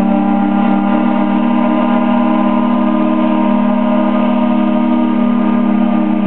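Sternwheel steamboat's steam whistle blowing a long, steady chord of several notes as a passing salute to another steamboat.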